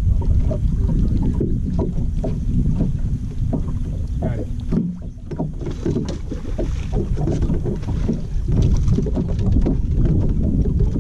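Wind rumbling on an open-air microphone over water lapping against a bass boat's hull, with scattered small knocks and slaps.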